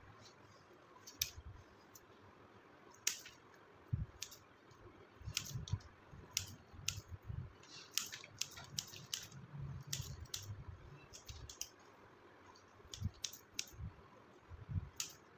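Scissors snipping fine roots on a lantana root ball: irregular sharp clicks, thickest in the middle stretch, with soft bumps of hands handling the soil-laden roots.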